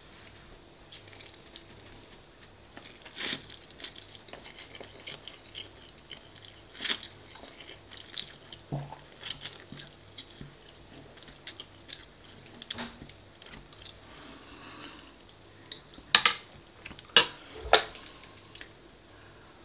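Close-miked chewing and wet mouth sounds of someone eating spaghetti bolognese, with scattered small clicks and smacks and a few louder sharp ones near the end.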